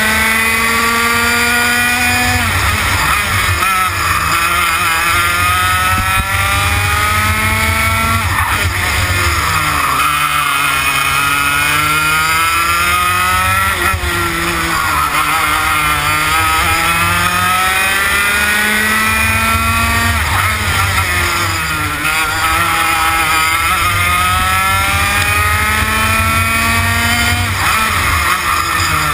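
TKM BT82 Extreme 115cc two-stroke kart engine running hard on track. Its pitch climbs for several seconds as it accelerates, then falls away when the throttle is lifted, about five times over, with a low rumble underneath.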